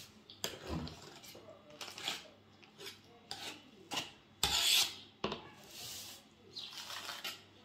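A knife scraping and rubbing across whipped cream in a baking tray as the cream layer is spread and levelled: a run of short, irregular scrapes, the loudest one lasting about half a second a little past the middle.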